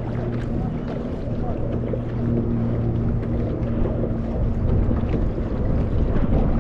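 Kayak being paddled on open river water: the paddle dipping and dripping, with wind buffeting the microphone, growing stronger near the end. A steady low motor hum runs under it through the first half.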